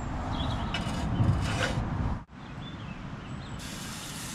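Steady background hiss with a few faint bird chirps. Near the end, pancake batter poured into a hot pan on a wood-burning tent stove starts to sizzle.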